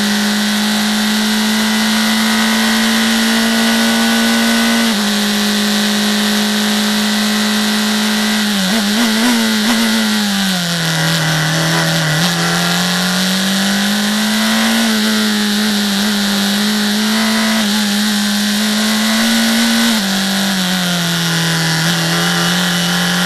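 Onboard sound of a USF2000 race car's Mazda 2.0-litre four-cylinder engine at racing revs, with wind rush over it. The engine note drops sharply at upshifts about 5 seconds in and near the end, wavers and falls about 9 to 11 seconds in as the car slows for a corner, then climbs steadily as it accelerates out.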